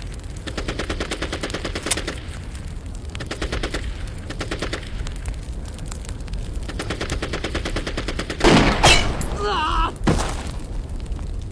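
Rapid machine-gun fire rattles on steadily in a battle soundtrack. Between about eight and a half and ten seconds in, a few much louder close gunshots cut through it, with a brief wavering high sound among them.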